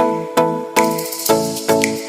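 Background music: electronic track with pitched chords struck about twice a second, each fading before the next, and a hissing high layer coming in under a second in.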